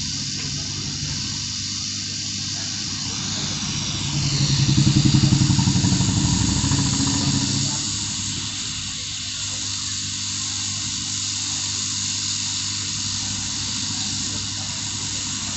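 Hot-air rework station blowing a steady hiss while heating a phone's charging socket to melt its solder. A louder low rumble swells and fades over about four seconds in the middle.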